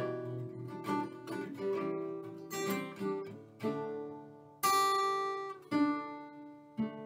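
Solo acoustic guitar: chords strummed and left to ring, coming about once a second in the second half, the loudest about two-thirds through. These are the slow closing chords of a song, with no voice.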